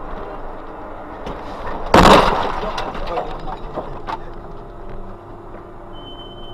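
Car collision heard from a dashcam inside the car: a sudden loud crash with breaking and rattling about two seconds in, over steady road and engine noise. A few small knocks follow, then a steady high beep starts near the end.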